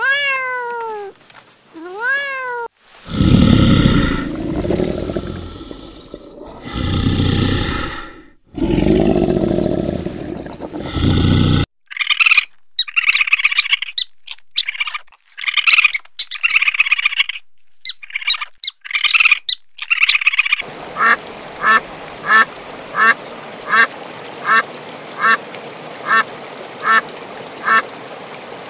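A calico kitten meows twice at the start. Then come three long, loud, deep animal calls, then a stretch of short sharp calls. In the last eight seconds a mallard quacks steadily, about twice a second.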